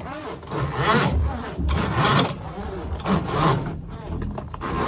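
Steel drain-cleaning cable being pulled back by hand out of a sewer line, rubbing and rasping in repeated strokes about once a second.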